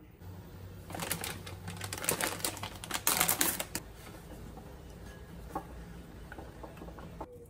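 Rice paper being dipped and swished in a bowl of water: a few seconds of dense crackling, clicking and splashing, then a few scattered faint drips and ticks as the wet sheet is lifted out.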